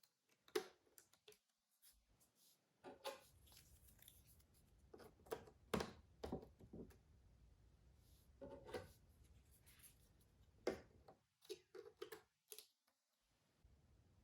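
Jigsaw puzzle pieces being handled and fitted together: irregular soft clicks and taps, close up.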